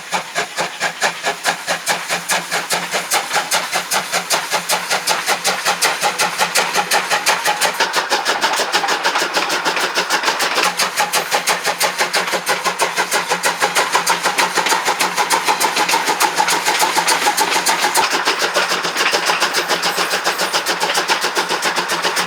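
Steam locomotive working hard, its exhaust chuffing in a fast even beat of about four a second, growing louder over the first several seconds and then holding steady.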